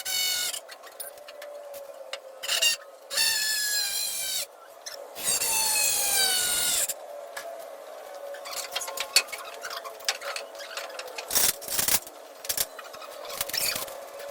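Sped-up work sounds from timber construction. In the first half come four short, high whines that rise in pitch as a power drill-driver spins up to drive screws; after that come scraping on wood and quick knocks.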